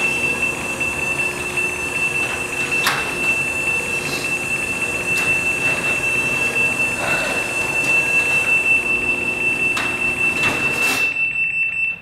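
Craftsman garage door opener closing the door under remote control: the motor and drive run with the door's rattle and a few knocks. Over them sounds a loud, steady high-pitched warning beep, the signal that the door is being closed remotely; beep and motor stop together as the door shuts near the end.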